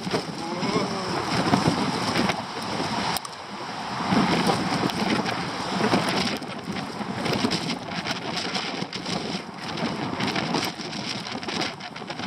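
Strong gusty storm crosswind buffeting the microphone, surging and easing every second or two, with scattered sharp taps and clicks through it.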